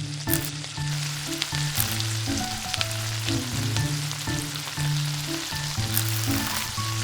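Food frying in hot oil in a miniature pan: a steady sizzle with small crackles, under background music.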